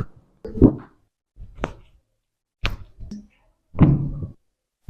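A series of about five short thuds and sharp cracks, roughly a second apart, from a chiropractor's hands-on adjustments, each dying away quickly.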